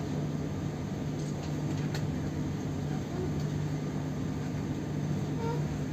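Passenger train running along the track, heard from inside the carriage: a steady rumble with a constant low hum, and one faint click about two seconds in.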